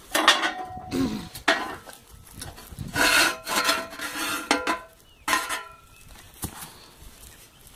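Galvanized steel well-boring pipe being handled, scraping and knocking in about seven short rasping bouts with a faint metallic ring, then a few quieter scuffs.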